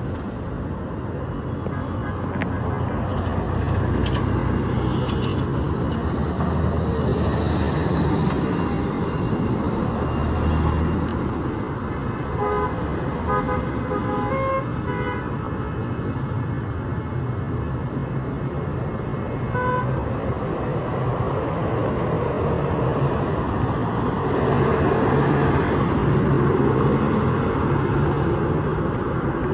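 Road traffic: vehicle engines running and passing, with a cluster of short horn beeps in the middle and one more a few seconds later.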